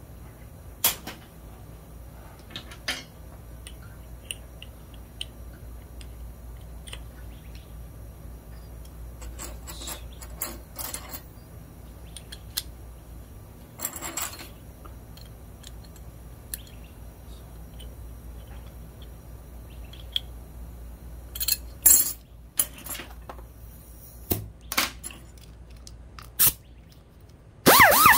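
Scattered small metal clinks and knocks of hand tools on a steel workbench: a wrench fitting a cutoff wheel onto an air die grinder's mandrel, and an air hose quick-coupler being brought to the grinder's inlet. A cluster of louder knocks and clicks comes near the end, over a steady low hum.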